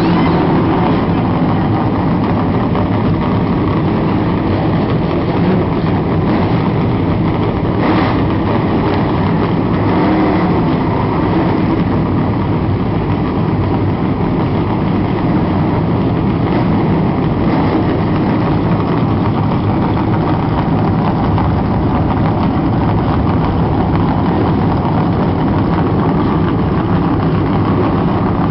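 Many NASCAR Nationwide Series stock cars' V8 engines running together at idle while the cars sit on pit road; a loud, steady, unbroken engine noise.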